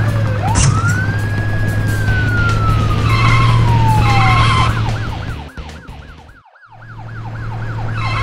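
Cartoon police siren sounding in fast, repeated rising and falling sweeps, about three a second. It breaks off at the start, and a long sliding whistle rises and then slowly falls, with two short beeps near its end over a low steady hum. The siren sweeps start again about halfway through.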